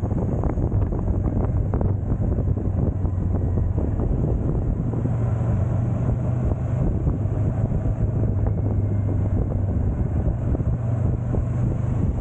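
Motorcycle engine running at a steady cruise, with wind noise buffeting the microphone.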